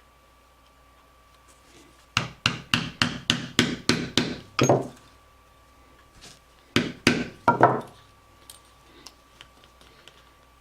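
Mallet striking a hole punch through a leather strap to make small stitching holes: a quick run of about a dozen sharp knocks, then after a pause a second run of four.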